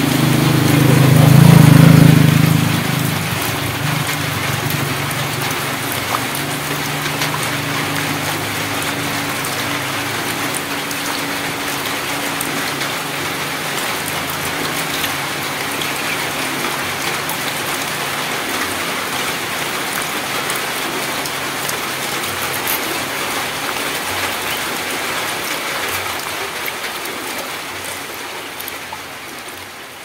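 Light rain falling on puddles and wet ground, a steady hiss. A passing engine is loudest about two seconds in, then fades away over the following several seconds.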